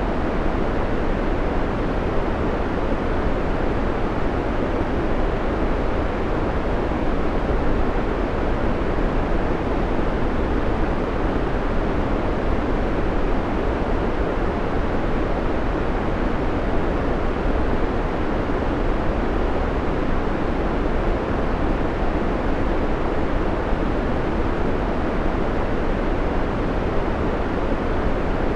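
Steady synthetic white noise: an even, unbroken rushing hiss with most of its weight in the low and middle range.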